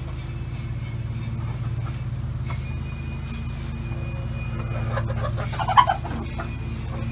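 Chickens calling: a short burst of clucking about five seconds in, with a sharp peak near its end, over a steady low hum.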